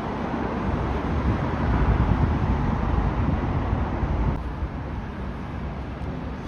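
Steady low vehicle rumble with wind buffeting the microphone. About four seconds in it cuts to quieter street traffic.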